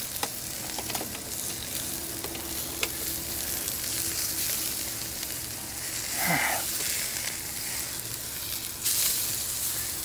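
Steak sizzling on a steel grill grate over campfire coals, a steady hiss with a few light clicks. The sizzle grows louder near the end as the steak is turned.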